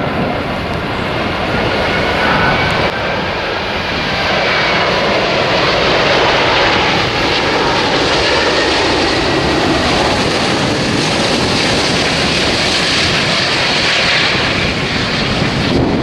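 Airbus A380's four Rolls-Royce Trent 900 turbofans on final approach: a steady jet roar with a thin fan whine that slides in pitch over the first few seconds, getting a little louder about four seconds in as the airliner comes close.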